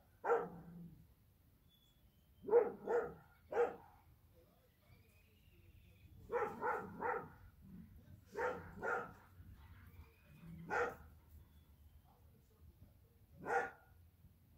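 Dog barking in short groups of one to three barks, a few seconds apart.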